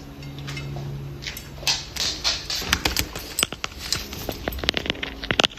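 A run of short, light clicks and taps, coming thicker and faster in the second half.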